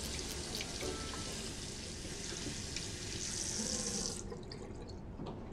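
Water running from a bathroom sink tap onto hands being washed, a steady splashing rush that stops about four seconds in.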